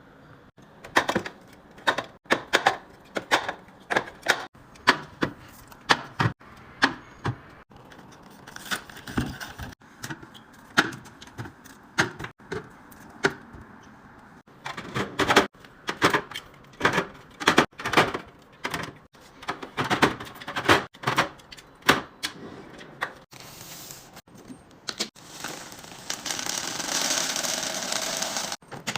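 Containers and groceries being handled and set into a fridge: an irregular run of sharp clicks, taps and clunks of plastic and glass. Near the end comes a steady hiss lasting about three seconds.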